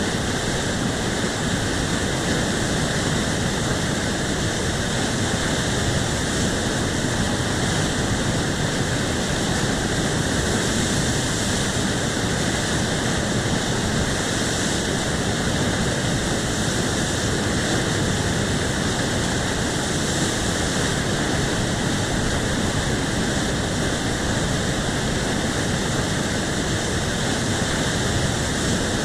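Whitewater rapids rushing, a loud, steady wash of churning water that holds without a break.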